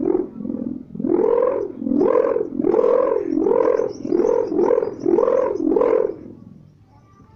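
A 3-metre sendaren kite hummer with a mika (plastic film) ribbon humming in the wind, its wailing tone swelling up and down in pitch a little under twice a second. It fades away about six seconds in.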